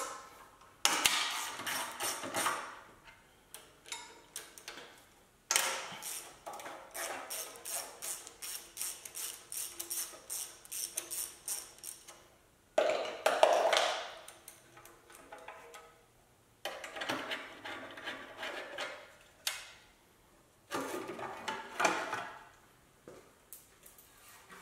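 Hand ratchet clicking in runs of quick clicks, with a long unbroken run in the middle, as the bolts holding a 2JZ engine's turbo heat shield are undone, with metal clinks from the loosened shield.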